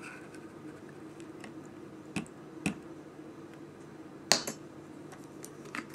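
A few short clicks and taps from a metal measuring spoon and a plastic bottle being handled at a table, the sharpest click about four seconds in. A faint steady low hum runs underneath.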